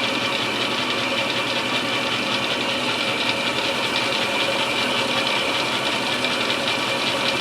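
Milling machine running steadily while inletting an English walnut gunstock, a constant machine hum with a steady high whine over it.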